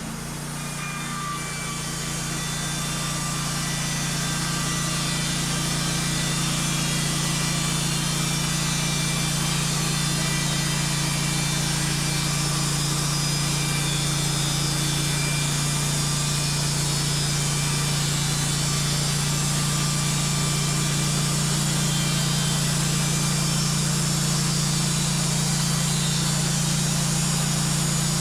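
Wood-Mizer portable bandsaw mill sawing a board from a log: the engine holds a steady hum while the band blade cuts through the wood. The sound fades up over the first few seconds, then stays level.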